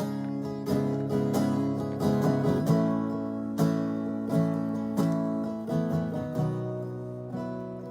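Acoustic guitar playing chords, struck about once every 0.7 seconds and fading toward the end, with no singing.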